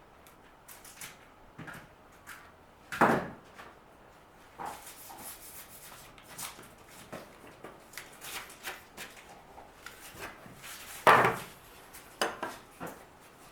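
Scattered clicks, scrapes and light knocks of hand work on a wooden door jamb, with two louder sharp knocks, one about three seconds in and one near the end.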